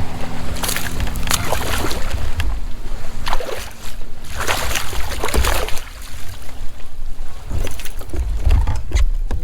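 Water splashing and sloshing around a kayak in irregular bursts, over a low wind rumble on the microphone.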